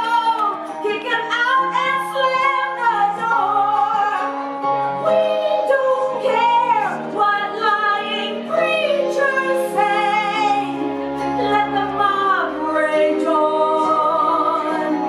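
A recorded pop-ballad track: a singing voice holding long notes with vibrato in an operatic style over sustained accompaniment, with a deep bass line coming in about two-thirds of the way through.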